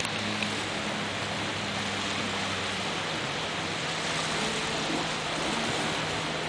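Steady rush of wind and breaking surf, with a faint low engine drone underneath from personal watercraft running offshore.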